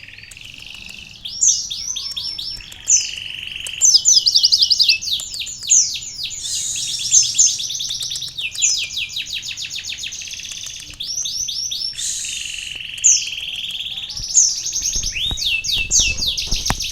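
A kolibri ninja sunbird singing a long, fast song of rapid trills and chattering phrases, its song filled with learned canary phrases. There is a low rumble near the end.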